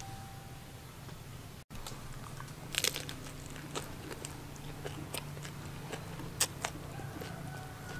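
A person biting into and chewing a fresh leaf wrap of beef tongue, with sharp crisp crunches at irregular intervals of about half a second to a second. The crunching begins a few seconds in, after a quieter start.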